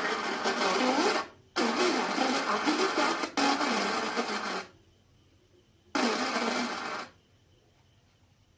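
Audio played through the speaker of a 4440 IC amplifier being tested after repair, coming in three loud bursts with short gaps between them. It has little bass and a harsh edge, and its sounding shows the amplifier is working again.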